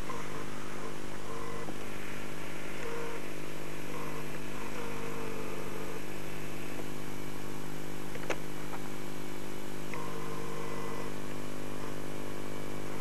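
Steady low hum with its overtones, over which a faint whine rises and falls now and then, with a single sharp click about eight seconds in.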